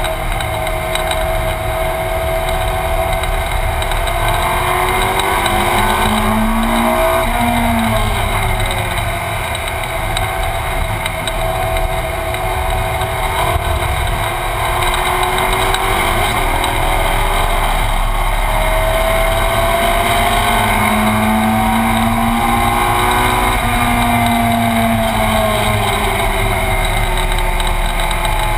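Ferrari 458 Challenge's V8 racing engine heard from inside the cabin, running hard at speed. Twice its pitch climbs for several seconds and then falls away, about a quarter of the way in and again near the end.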